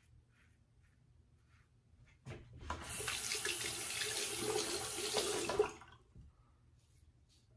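A few faint scraping strokes of a Karve Overlander safety razor on lathered stubble, then a bathroom tap runs for about three and a half seconds as the razor is rinsed, cutting off sharply; faint strokes resume near the end.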